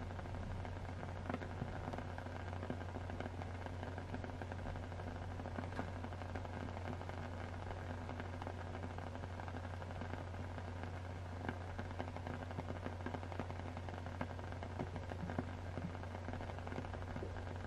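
Steady rain ambience with a constant low hum beneath it and frequent small crackles and pops scattered through.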